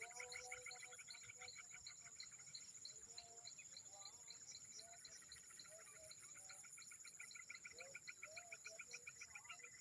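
Faint night chorus of crickets and other insects: fast pulsed trilling over a steady high whine, with a few short, low calls scattered through it.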